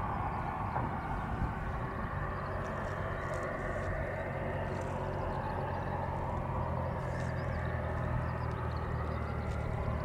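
Cessna 172P's four-cylinder Lycoming O-320 piston engine and propeller running steadily at low taxi power as the light aircraft rolls and turns on the runway.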